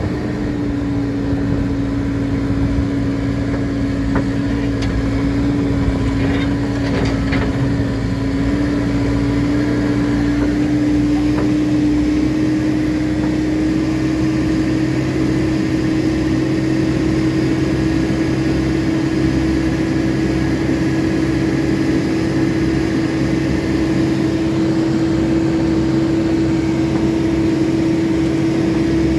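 Tractor engine running steadily under load, heard from the operator's seat, a constant drone whose pitch rises slightly about ten seconds in.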